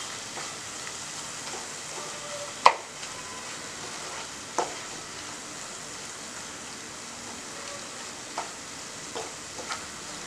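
Ground onion paste with green chillies and ginger sizzling as it is sautéed in a non-stick pan and stirred with a wooden spoon: a steady frying hiss under the scraping of the spoon. The spoon knocks sharply against the pan about two and a half seconds in, again about four and a half seconds in, and taps more lightly a few times near the end.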